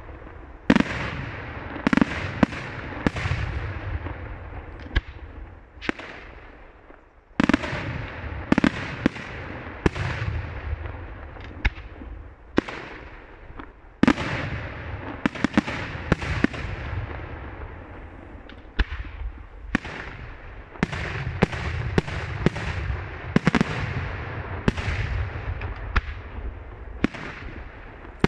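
Daylight fireworks: aerial shells bursting overhead in an irregular barrage of sharp bangs, with a rumbling echo between them. The barrage eases off twice, and heavy volleys resume about seven seconds in and again at about fourteen seconds.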